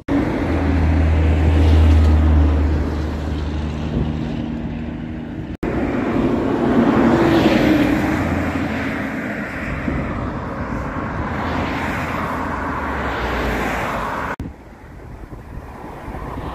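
Road traffic passing close by: engine hum and tyre noise from vehicles that swell and fade. The sound breaks off abruptly twice.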